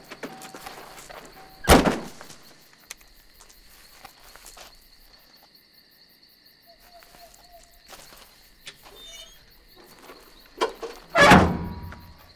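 Pickup truck door shut with a heavy thunk about two seconds in, then faint steps and small clicks. Near the end a click and a louder, longer clunk come from the back of the truck as its rear canopy hatch is worked.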